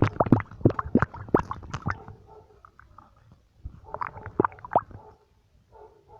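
Stomach gurgling: a rapid run of short pops and squelches in the first two seconds, then quieter, then another cluster about four seconds in.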